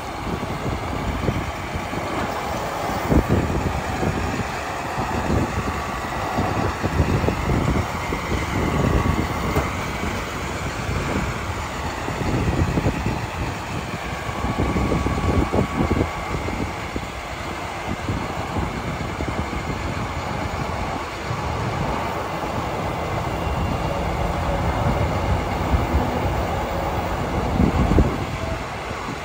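A 2008 International 4300's DT466 diesel engine running steadily, driving the hydraulic pump of its IMT crane while the boom swings and lowers.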